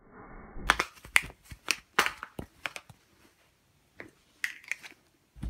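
A hand tapping and knocking against the recording phone, close to its microphone. About a dozen sharp clicks come in quick succession starting under a second in, then a few more after a pause near the end.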